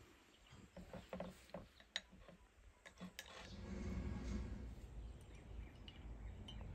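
Faint taps and clinks of tableware being handled on a tray: a spoon, a small porcelain dish and tea glasses, with a few sharp clicks in the first three seconds. A low rumble swells about halfway through.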